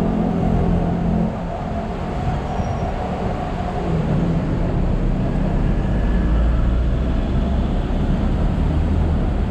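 Hong Kong double-decker tram running along its street tracks, heard from on board: a loud, steady rumble and rattle of the car, with a deeper hum building from about halfway through.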